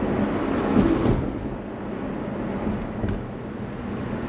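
In-cabin sound of a Lotus Emira's engine and tyres as the car slows in second gear: a low, steady rumble that swells briefly about a second in and then eases.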